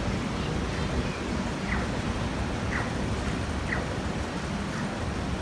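City street traffic: a steady rumble of passing cars. From about two seconds in, a short, high, falling chirp repeats about once a second.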